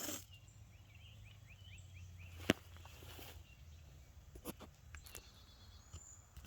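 A small bird singing a quick run of about seven short chirps, over a faint steady outdoor background, followed by a few sharp clicks, the loudest about halfway through.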